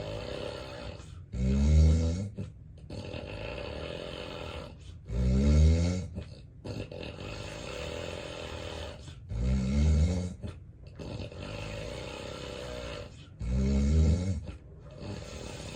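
A man with severe sleep apnea snoring heavily in his sleep: four loud, low snores come about four seconds apart, each lasting about a second, with a rushing breath between them.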